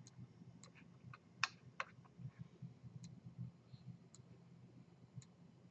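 Computer mouse clicking a few times at irregular intervals, with a louder pair about a second and a half in, over a faint low steady hum.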